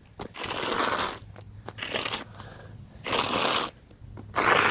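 Gritty crunching and scraping in four separate bursts, the first about a second long, the others shorter: a Nokia 2780 Flip phone being scraped against a rough surface.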